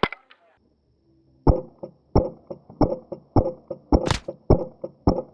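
An HPA airsoft rifle (an MK18 with a Polarstar Kythera engine) firing single shots at a steady pace, about seven sharp knocks roughly 0.6 s apart, with a brighter crack among them a little after four seconds.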